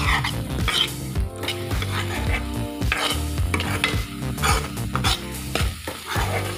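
Slotted steel spatula repeatedly stirring and scraping egg bhurji around a frying pan, the eggs, onion and tomato sizzling as they fry.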